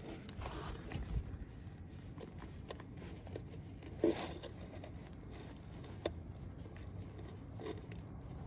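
Faint low wind rumble, with a few scattered light clicks and knocks of hands and tools handling gear.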